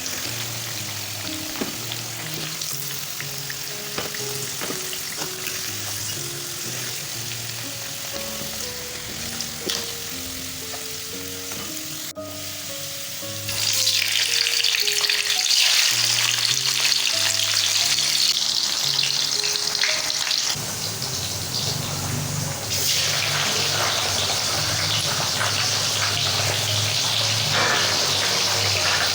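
Food frying and sizzling in a pan, with a few small clicks of stirring. The sizzle becomes much louder and harsher about halfway through and stays that way.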